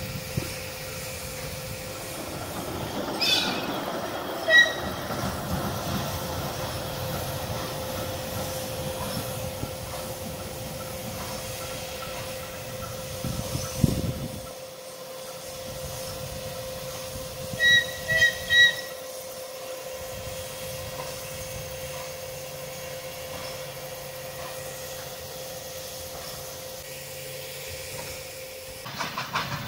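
Train hauled by a diesel shunting locomotive rolling past on the rails, with a steady engine hum. Short high-pitched tones sound about four seconds in and three times in quick succession around eighteen seconds.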